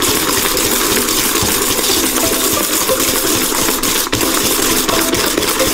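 Electric stand mixer's wire whisk beating egg yolks and sugar in a stainless steel bowl at medium speed: a steady whirring swish of the whisk through the thick mixture, with a faint motor hum underneath.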